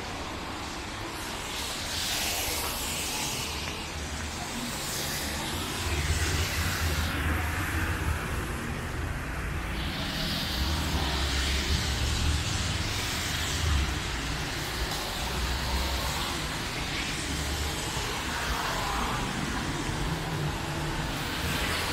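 Road traffic on wet asphalt: car engines and tyres hissing through water, swelling and fading as vehicles drive past.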